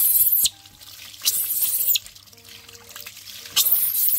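Water from a garden hose gushing over a baby monkey and splashing onto a wet concrete floor, in three loud bursts of spray about a second and a half apart.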